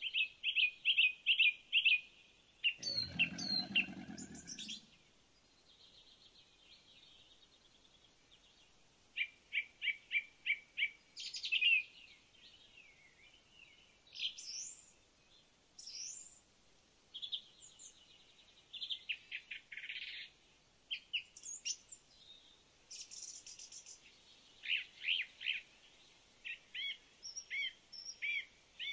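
Several birds calling in short, repeated high-pitched chirping phrases, with pauses between them. A brief low-pitched noise lasts about two seconds near the start.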